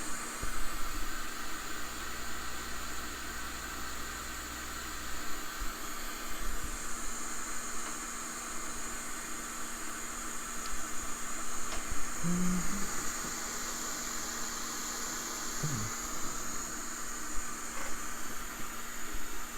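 Steady hiss of blowing air, with a few faint ticks and small knocks.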